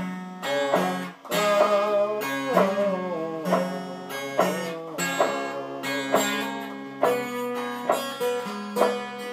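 Blues played on a plucked guitar-type string instrument, amplified, with a picked note about every half second and several notes bending and sliding in pitch.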